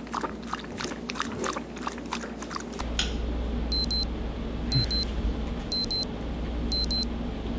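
A dog lapping water from a metal bowl, a quick run of wet clicks, for about three seconds. Then, over a low steady hum, an electronic double beep repeats about once a second, like a mobile phone's alert.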